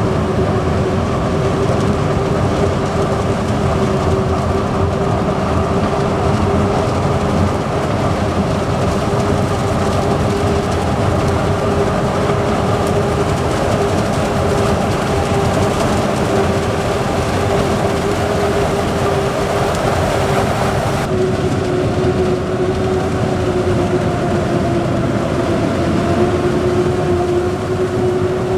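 Claas Jaguar 990 self-propelled forage harvester chopping maize at full work: its engine and chopper run steadily with a constant whine over a dense rumble. About two-thirds of the way through, the sharper upper part of the noise drops away a little.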